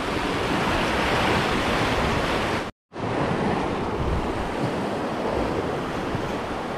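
Sea surf washing and breaking against a rocky shore, a steady rushing noise, with wind buffeting the microphone. The sound cuts out completely for a split second a little under halfway through, then resumes.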